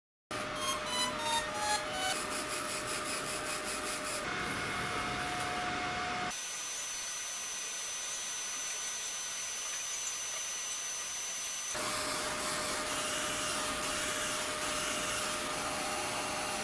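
A 20 W fiber laser engraver at work: a steady fan hiss with the thin whining and buzzing tones of the scanning head. It opens with a run of short tones stepping down in pitch, and the tones shift abruptly a few times, with a high steady whine through the middle stretch.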